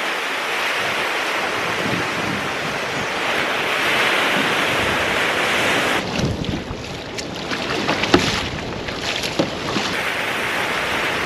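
Small waves breaking and washing up a sandy beach in a steady hiss. About six seconds in it switches to wind buffeting the microphone with scattered paddle splashes on choppy water from a kayak, then back to the surf near the end.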